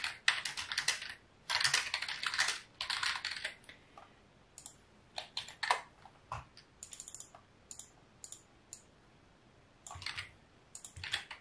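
Typing on a computer keyboard: quick runs of keystrokes during the first few seconds, then a few scattered single clicks, and another short run near the end.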